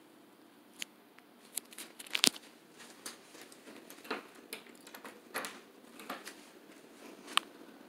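Irregular clicks and knocks in a bare room, the sharpest a little over two seconds in and another near the end, over a faint hiss: footsteps and handling noise from a phone being carried while it films.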